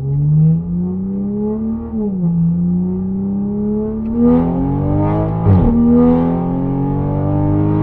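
Toyota A90 Supra's B58 turbocharged straight-six accelerating hard at full throttle, heard from inside the cabin. The engine note climbs steadily and drops at each upshift, about two seconds in and again about five and a half seconds in.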